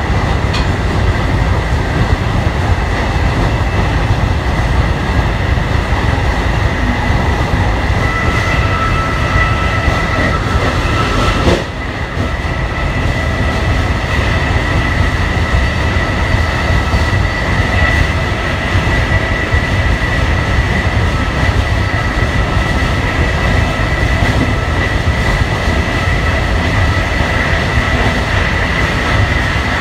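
Amtrak Northeast Regional passenger train running at speed, heard from inside the rear car: a steady rumble of wheels on rail with a thin, steady high whine over it. The loudness dips suddenly and briefly just under halfway through.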